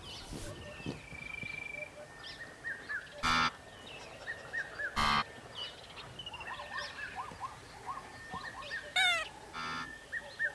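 Savanna ambience of many small birds chirping and whistling, broken by short, loud honking grunts from a wildebeest, once about three seconds in, once about five seconds in, and twice close together near the end.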